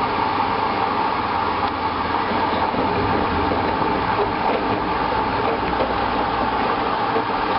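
Hoover washing machine running steadily at the start of its first rinse, a continuous mechanical rumble with hiss.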